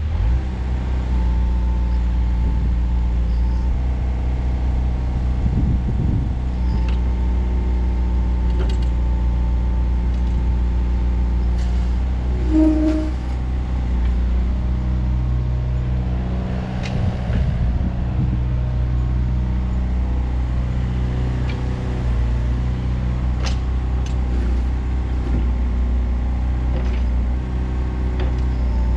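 Yanmar VIO50-U mini excavator's diesel engine running steadily while the boom, arm and bucket are worked hydraulically, with a few short knocks and clicks and a brief tone about twelve seconds in.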